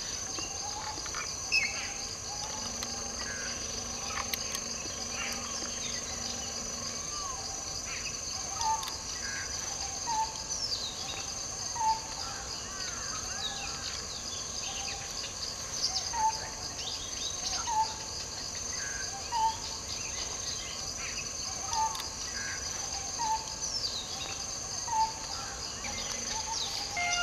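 Forest ambience: a steady high-pitched insect chorus with several birds calling over it in scattered chirps and falling whistles. One bird repeats a short note every second or two from about eight seconds in.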